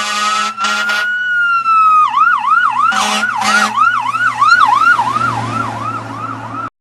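Emergency vehicle siren: a slow rising wail that switches about two seconds in to a fast yelp of about three cycles a second, then cuts off abruptly near the end. Loud blaring blasts sound over it at the start and again about three seconds in.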